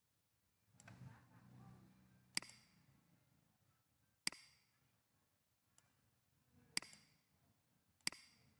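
Computer mouse clicking: four sharp clicks a second or two apart, with a couple of fainter ones between them, over a soft low rumble in the first couple of seconds.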